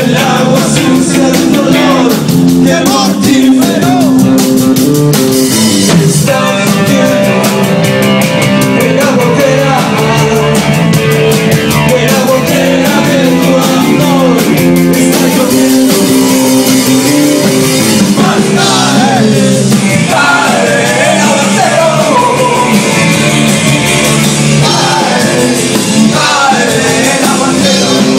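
Rock band playing live, with a man singing over it.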